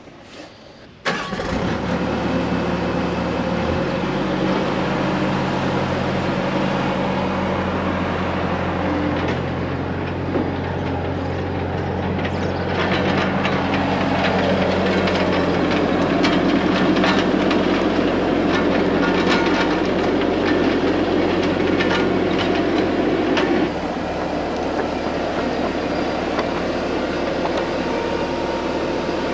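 Bobcat T300 skid steer's diesel engine starting about a second in, then running and revving up. It is busier and louder through the middle with scattered knocks and clatter, and it settles back lower near the end.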